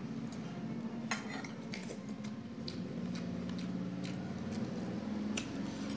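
Eating by hand from a plate: fingers scraping and clicking against the plate, with a few sharp clicks spread through, over a steady low hum in the background.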